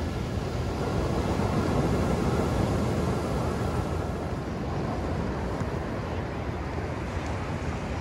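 Surf on a sandy beach: small waves breaking and washing up the shore as a steady rush that swells about a second in and eases after about three seconds.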